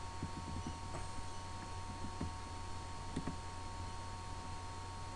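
Steady low electrical mains hum with a few faint computer mouse clicks.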